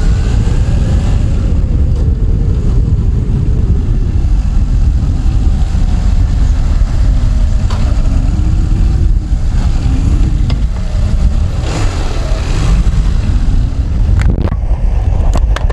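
Motorcycle engine running under way, its pitch rising and falling as it changes speed, with heavy wind rumble on the microphone.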